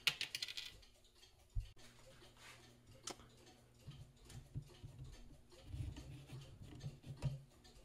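Faint, scattered clicks and light taps of metal pliers working a wire lead on a terminal in a camera's metal chassis, with a quick run of clicks at the start.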